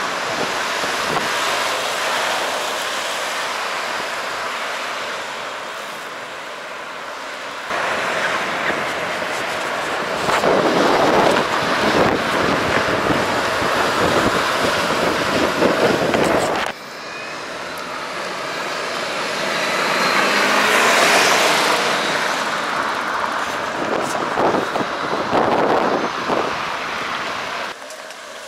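Outdoor noise of wind on the microphone mixed with road traffic, in several clips cut together. About twenty seconds in, a vehicle swells up and fades as it passes.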